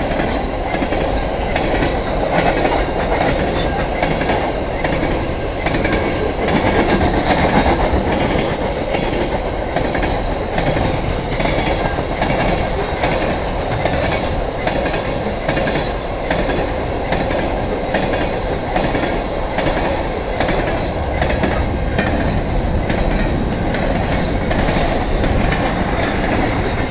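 Freight cars of a CN mixed freight train rolling past: a steady rumble of steel wheels on the rails, with repeated clicks of the wheels over rail joints.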